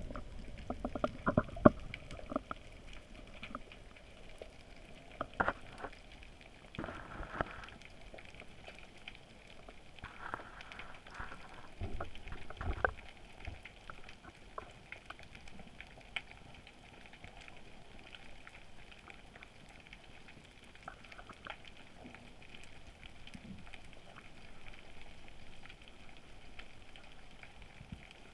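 Underwater sound from a camera hanging on a rope line in the sea: a steady hiss with many faint scattered clicks. Heavier knocks and bumps in the first half, likely the rope and camera being jostled, then it settles.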